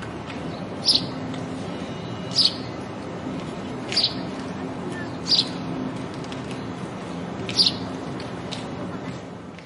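House sparrow chirping: five loud, short chirps spaced a second or two apart, with a few fainter ones between, over a steady low hum and background noise.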